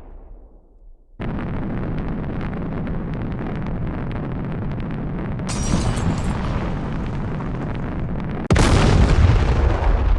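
Explosion sound effects. A rumbling blast full of crackles starts suddenly after a brief lull and grows brighter partway through. A second, louder blast hits near the end.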